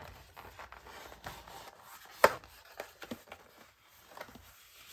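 Hands opening a thin cardboard box: light rubbing and rustling of the card, with one sharp click about two seconds in.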